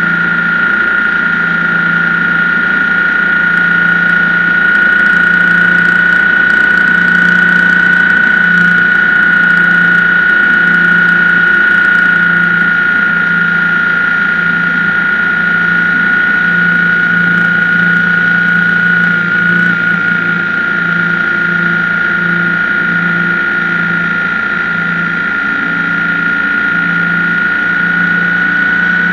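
BMW R1150GS boxer-twin engine running loudly and steadily while the motorcycle is ridden, with a constant high whine over the engine note.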